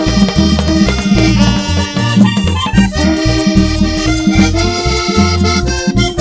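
Tambora band music played live: an instrumental passage between sung lines, with a sustained melody over a steady drum and percussion beat.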